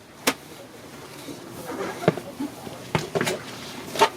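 Hand tools clicking and knocking against a small car engine while it is turned by hand to line up the timing-belt marks. There are about five separate sharp knocks, the loudest near the end.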